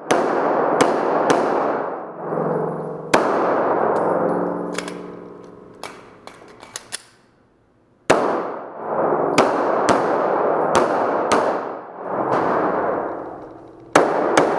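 Glock 34 Gen4 9 mm pistol firing in quick strings of shots, each crack followed by a long echo off the concrete walls of an indoor range. A few quieter clicks come in a pause near the middle, before the shooting resumes.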